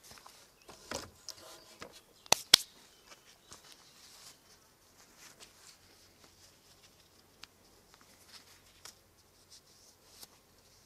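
Wood and tools being handled on a sawhorse bench: two sharp knocks a quarter second apart about two seconds in, then faint scattered ticks and rustles. No sander is running.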